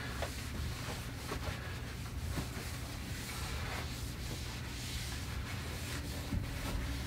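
Faint rubbing and light knocks of items being shifted around inside an overhead kitchen cabinet, over a steady low hum.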